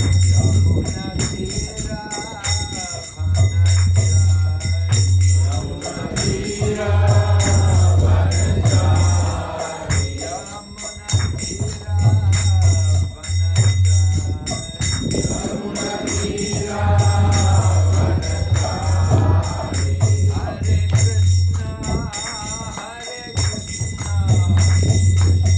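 Devotional group singing in long phrases, backed by fast, steady jingling percussion and a low note that cuts in and out.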